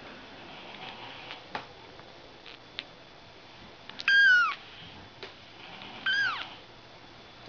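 Two high-pitched mews from a young Ragdoll kitten, about four and six seconds in, each falling in pitch. A few faint clicks come before them.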